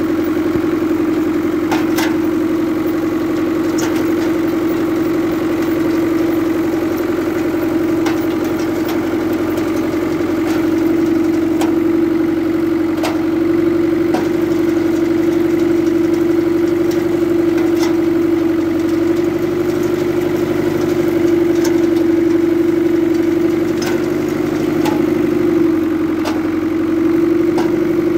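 Tractor engine running steadily while it tows an OMAS 104 bale loader, with sharp metallic clanks from the loader's pickup and elevator mechanism every second or two.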